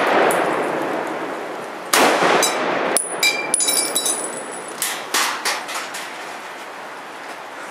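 An M1 Garand in .30-06 fires one shot about two seconds in, the echo of a shot just before still dying away at the start. About half a second to a second later comes a ringing metallic ping, typical of the rifle's empty en-bloc clip ejecting after the last round, followed by a few light clinks of brass landing.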